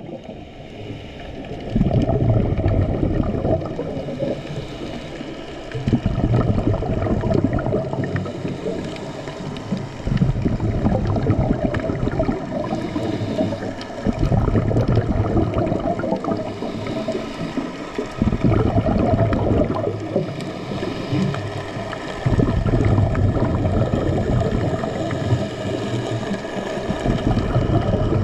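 Underwater sound of a scuba diver breathing: a rush of exhaled bubbles rumbles about every four seconds, seven times, with quieter inhalation gaps between.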